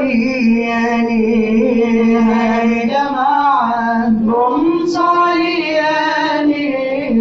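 A Swahili qaswida sung by a group of men and boys in unison, a slow chanted melody with long held notes.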